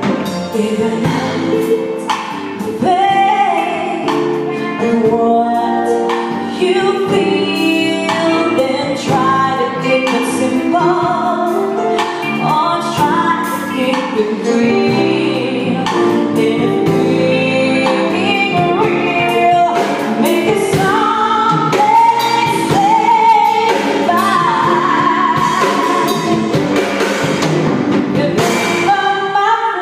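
Live band playing a song: a woman sings lead over a drum kit and electric guitars.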